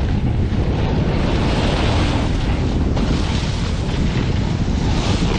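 Steady wind buffeting the microphone during a snowboard descent, mixed with the hiss of the board sliding through heavy snow.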